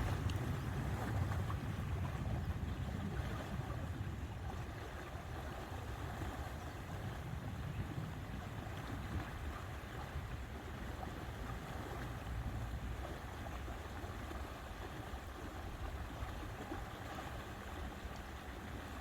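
Steady lakeside ambience of wind and water, with a low rumble that runs throughout and no distinct events.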